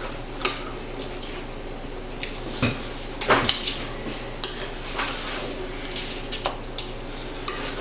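Irregular clatter of hard household items: a dozen or so sharp clinks and knocks spread unevenly, a few ringing briefly.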